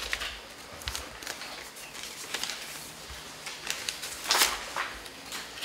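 Paper rustling and small clicks as ballot envelopes are opened and the ballots unfolded, with a louder rustle about four seconds in.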